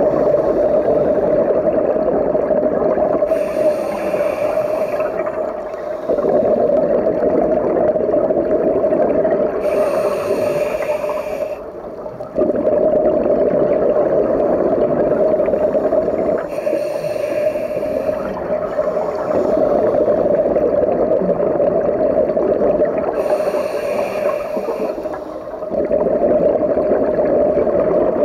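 Scuba diver breathing through a regulator underwater: long bubbling exhales, with a short hissing inhale four times, about every six or seven seconds.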